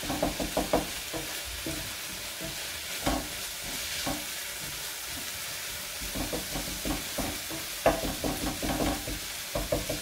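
Turkey mince with spices and tomato puree sizzling as it fries in a pan, stirred and scraped with a wooden spatula. A steady frying hiss, with bursts of scraping strokes near the start and again in the last few seconds.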